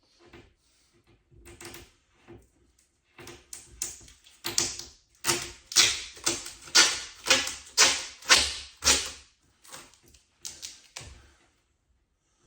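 Protective plastic film being cut and pulled away from a cabinet door face: a series of short scratchy strokes, sparse at first, then about two a second and loudest through the middle, tailing off near the end.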